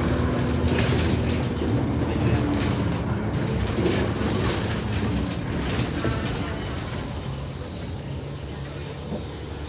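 Bus running on the road, heard from inside: a steady low engine and road rumble with scattered rattles and clicks from the body and fittings, growing quieter through the second half.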